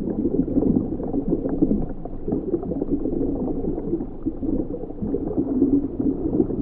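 Muffled, bubbling water: a steady dull gurgle with small pops scattered through it.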